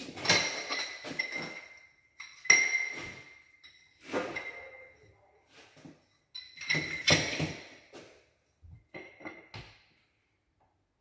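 Ceramic mosaic tile sheets clinking and rattling as they are picked up and handled, in about five bursts of knocks, the louder ones followed by a short bright ringing.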